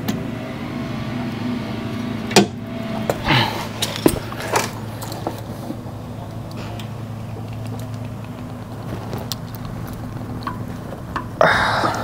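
Metallic clicks and clanks of a long-handled hand rivet nut tool being worked to set a rivet nut into the frame, with a steady low hum underneath. A louder noisy burst comes near the end.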